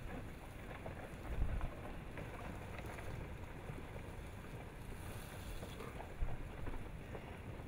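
Rockfall tumbling down the flank of Paluweh volcano's lava dome: a continuous low rumble with faint clatters of falling rock and wind on the microphone. The rumble swells briefly about a second and a half in and again about six seconds in.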